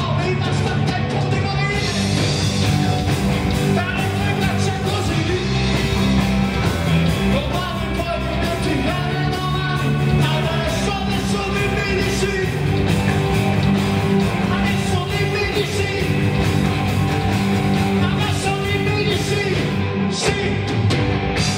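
Live rock band playing: two electric guitars, bass guitar and a drum kit.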